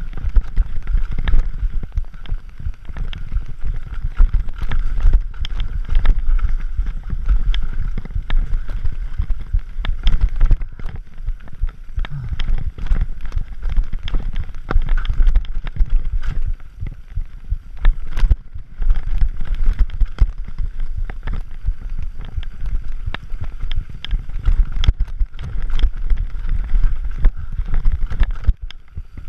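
Scott Gambler 720 downhill mountain bike descending a rough dirt trail at speed, rattling and clattering over rocks and roots with a steady stream of irregular knocks, over a constant low rumble of tyre noise and wind on the microphone.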